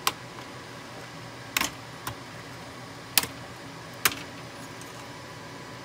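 Sharp plastic clicks and taps, four or five spread over a few seconds, as the memory slot's retaining latches are opened and a DIMM memory module is handled at the slot.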